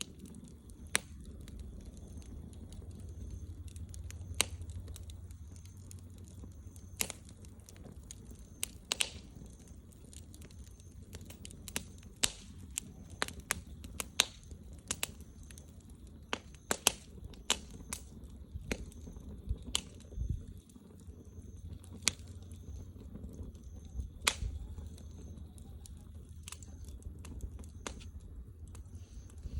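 Wood bonfire crackling: sharp, irregular pops and snaps over a low, steady rumble.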